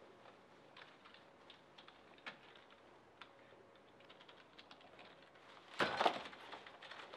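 Typing on a computer keyboard: a quick, irregular run of light key clicks. About six seconds in comes a louder burst of clatter.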